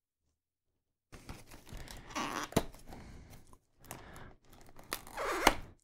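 Small cardboard box being opened by hand, starting about a second in: cardboard flaps scraping and rustling, with small sharp clicks. The loudest scrapes come near the middle and just before the end.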